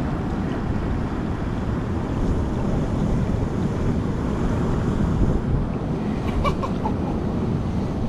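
Wind buffeting the microphone over the wash of surf on a rocky shore: a steady low rush with no break.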